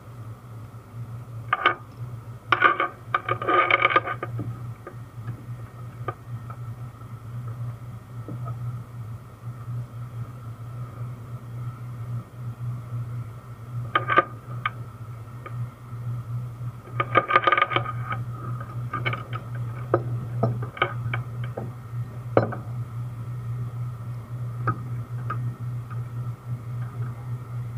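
Heavy steel tie-down chain clanking and rattling against a bulldozer's track in several short spells, over a steady low hum.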